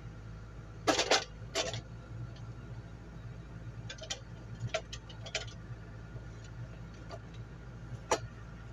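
Scattered sharp metallic clinks and knocks from tools working on a forwarder wheel and tyre: a loud cluster about a second in, several lighter ones around four to five seconds, and one more near the end, over a steady low hum.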